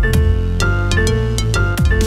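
Cheerful electronic tune: synthesizer and piano notes over a steady bass line, the chords changing about every half second.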